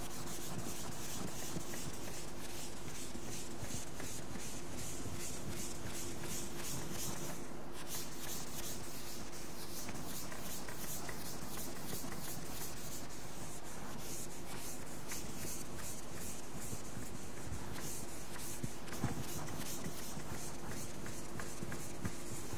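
A blackboard duster rubbing chalk off a chalkboard in rapid, even back-and-forth strokes, with a steady low hum beneath.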